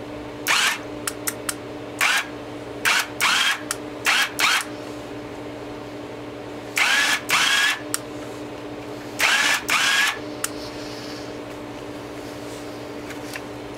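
Motorcycle landing gear's electric gear motor running in short bursts of about a third of a second, some in pairs, as its switch is pressed and released, each burst cutting off sharply. A steady low hum runs underneath.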